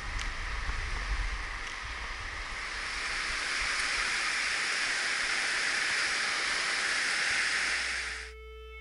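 A mountain river rushing over rocks through rapids: a steady hiss of water that swells after the first couple of seconds and cuts off suddenly near the end, where soft music starts. Before the water, a low rumble is heard for about two seconds.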